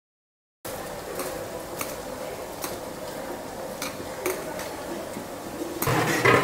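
Sliced onions being tipped from a steel tray into a large aluminium pot and worked in with a long ladle: a steady hiss with scattered sharp clicks and taps of metal on the pot. It starts after a brief silence and grows louder and busier near the end.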